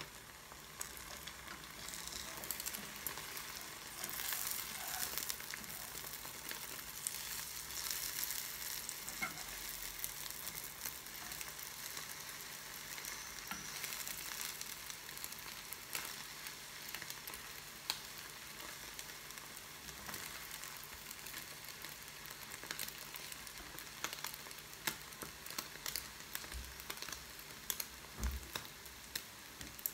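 Beaten eggs sizzling in a frying pan as they are stirred and scrambled with a wooden spatula. A steady hiss runs under scattered light clicks and taps, which come more often near the end.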